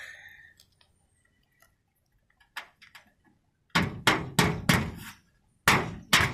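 Claw hammer driving nails into an asphalt-shingle roof along a metal roof cap. Two light taps set a nail, then a quick run of about five sharp blows, a short pause, and two more blows near the end.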